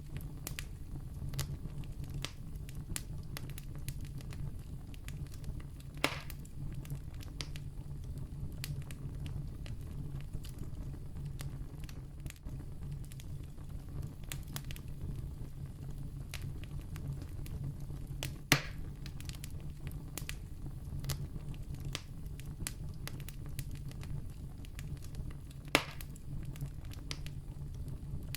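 Campfire burning with a steady low rumble and constant small crackles, with three louder sharp pops at about six, eighteen and twenty-six seconds in.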